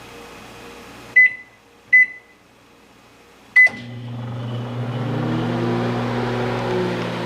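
Microwave oven keypad beeping twice, then a third beep with a click about three and a half seconds in. The oven then starts running with a steady electrical hum that swells louder.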